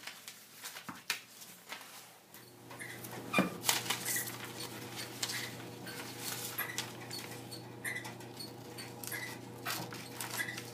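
Scissors cutting through paper templates: repeated snips and paper rustling, with short high squeaks about every second and a half. A steady low hum comes in about two seconds in.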